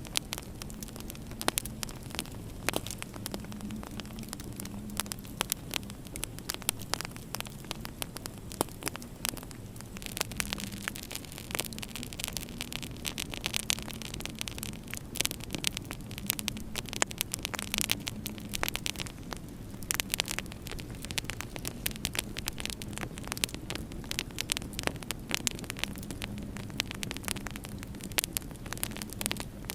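Wood fire in a fireplace crackling, with frequent sharp pops and snaps, over a steady low hum and hiss. The hiss grows stronger for several seconds in the middle.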